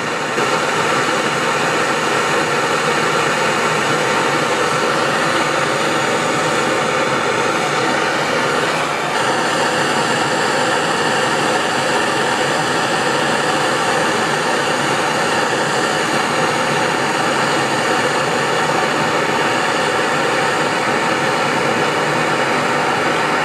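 Gas torch flame hissing steadily while it heats a copper battery-cable lug loaded with a solder slug, melting the solder so the 2/0 cable can be pushed in and soldered.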